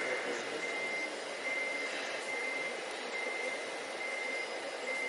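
Electronic reversing-alarm beeper from an RC scale construction model's sound module: a single high-pitched beep repeating evenly, a little more than once a second, over a steady hiss.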